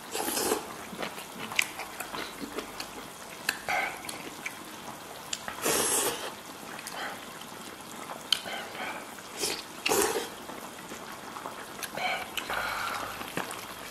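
Close-up wet eating sounds: a man slurping and chewing hot-pot meat dipped in spicy broth, in irregular bursts with the longest slurps about six and ten seconds in, and a few sharp clicks between them.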